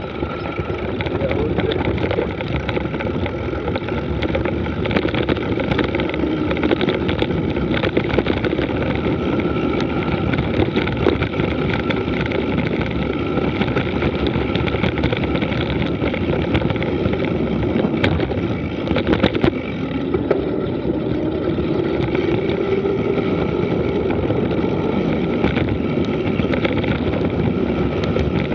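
Wind rushing over the microphone and mountain-bike tyres rolling on a loose gravel dirt road while descending, with constant small rattles and knocks from the bike over the bumps. A few sharper knocks come a little past halfway.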